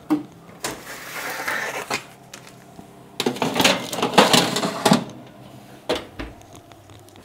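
Metal baking tray scraping as it is slid off a stone worktop, then clattering against metal for a couple of seconds as it goes into the oven, with a few single knocks near the end.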